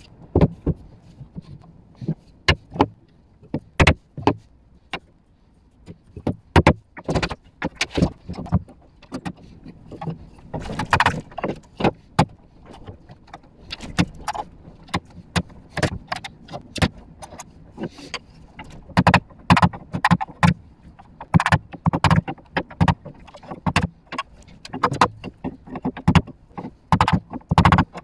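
Irregular wooden knocks and clatter as Sapele slats and rails are fitted onto domino tenons and tapped home with a hammer, with metallic clinks from the sash clamps being handled.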